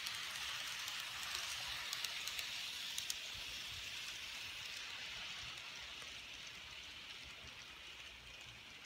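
N scale model passenger train running on its track: a steady whirring hiss with a few light ticks, fading as the train moves away.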